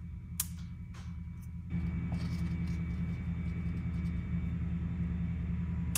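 A steady low hum that grows louder about one and a half seconds in, when a faint high steady whine joins it. There is one sharp click shortly after the start.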